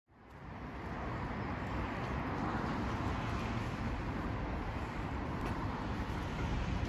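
Outdoor city ambience: a steady hum of distant traffic and street noise, fading in over the first second.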